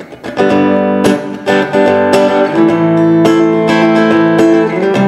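Donner Hush I silent travel guitar strumming chords that ring on, heard through its piezo pickup with the low and high tone controls at their middle settings. The playing starts about half a second in.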